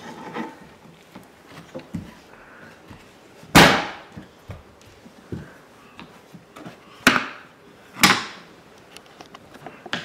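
Wooden knocks and clacks from children handling a wooden play kitchen and its toys: three loud, sharp knocks, two of them about a second apart, with lighter taps between.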